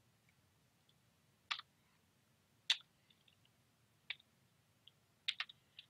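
Separate computer keyboard key presses, faint sharp clicks spaced a second or more apart, then several in quick succession near the end.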